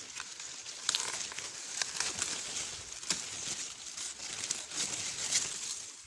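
Corn leaves and husks rustling and crackling as a hand pushes through the stalks and picks ears of corn, with a few sharper cracks.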